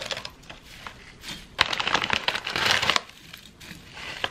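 Brittle dried Korean thistle stems and their plastic packet crackling and crinkling as they are shaken out into a steel bowl and pressed down by hand: a short burst at the start, then a longer, louder spell of crackling in the middle.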